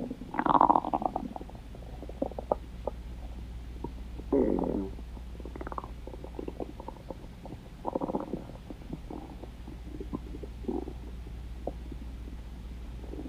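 Stomach growling: a series of irregular gurgles and rumbles, the loudest about half a second in and others around four, eight and eleven seconds, with small pops and clicks in between.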